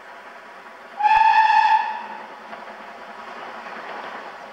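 Steam whistle of BR Standard Class 4MT 2-6-4 tank locomotive No 80151: one short, loud blast of a single note about a second in. Under it runs the steady rumble of the approaching engine, which swells slightly as the locomotive nears the tunnel mouth.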